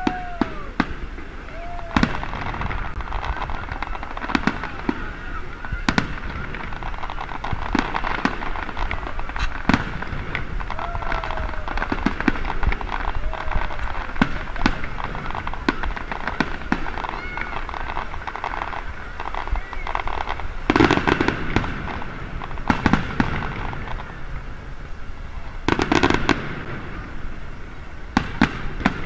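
Aerial fireworks shells bursting in quick succession: a steady string of bangs and crackles, with two denser, louder volleys about three-quarters of the way through and again near the end.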